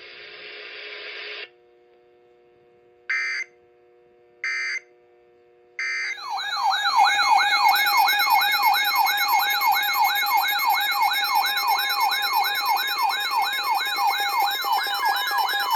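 Emergency Alert System activation: a hiss that cuts off after about a second and a half, then three short data bursts of the SAME header about a second apart, then a loud warbling siren-style attention tone that rises and falls about three times a second.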